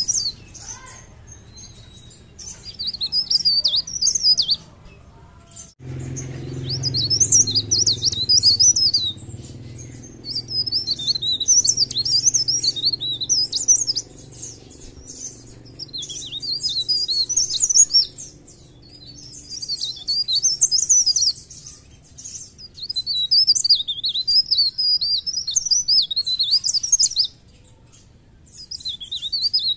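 A caged blerengan (cikrak daun) singing in full voice: fast, high, twittering phrases a few seconds long, repeated again and again with short pauses between.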